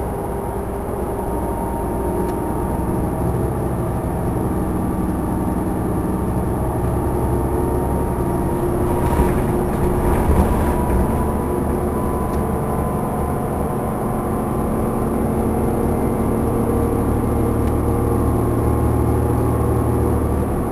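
Inside a 2009 New Flyer DE40LF diesel-electric hybrid bus cruising at highway speed: steady drone of its Cummins ISL diesel and Allison EP 40 hybrid drive over tyre and road noise. There are a few brief louder jolts about halfway through.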